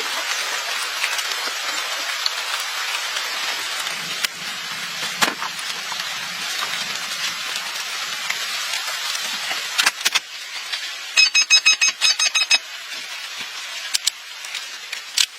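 A steady hiss for about ten seconds, then a few sharp clicks and a quick run of short, high electronic beeps.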